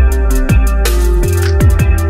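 Electronic background music with a steady beat: deep kick drums that drop quickly in pitch, held bass notes and fast hi-hat ticks.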